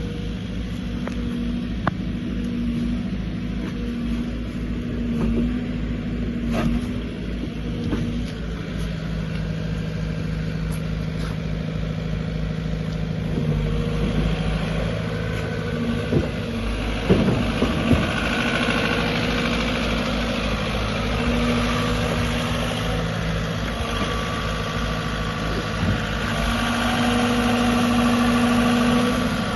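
Diesel engine of a JCB 86C-1 midi excavator running steadily, with a few sharp knocks a little past halfway; the sound grows fuller and louder in the second half, loudest near the end.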